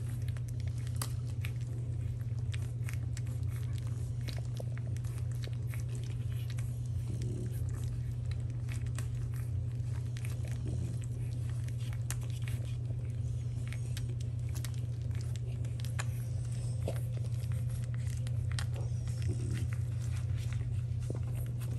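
Week-old French bulldog puppies nursing: irregular wet suckling and smacking clicks over a steady low hum.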